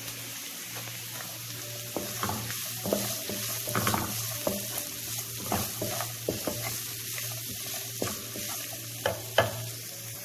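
Chopped onion, green chilli, carrot and green gram sizzling in a nonstick wok while a wooden spatula stirs and scrapes them. The scrapes and taps come irregularly from about two seconds in, over a steady sizzle and a low hum.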